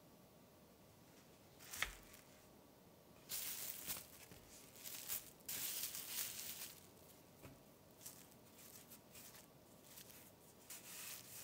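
Cling film crinkling loudly for a few seconds as it is lifted off rising dough balls, after a single sharp tap about two seconds in. Softer rustling follows as a ball of pastry dough is shaped by hand on a wooden board.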